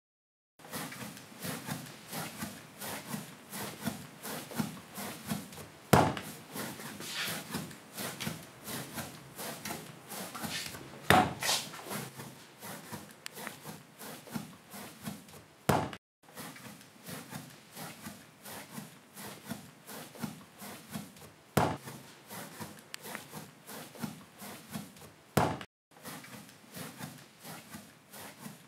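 Hand work with a tool: repeated scraping strokes, a few a second, with a sharp knock every few seconds. The sound cuts off abruptly twice.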